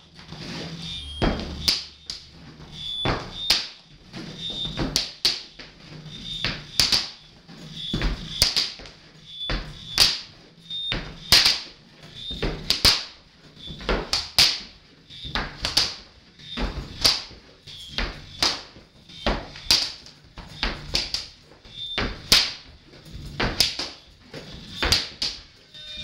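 Leather belt whipped against a hard floor by its non-buckle end, landing in sharp slaps about once or twice a second, over a faint steady high electronic tone and low hum.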